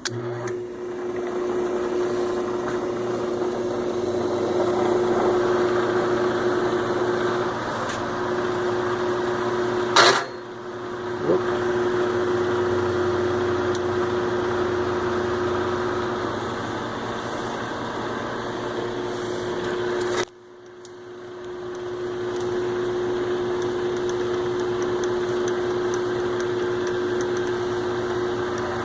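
Grizzly metal lathe running under power with a steady hum and whine. There is a sharp click about ten seconds in. About two-thirds of the way through the sound drops away suddenly, then builds back up to full over about two seconds.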